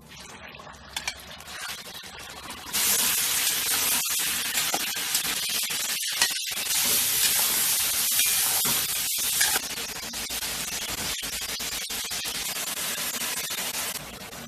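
Beef sizzling as it fries in hot oil in a kazan for plov, a steady hiss that grows louder about three seconds in and drops back somewhat near ten seconds. It is broken by several brief dropouts.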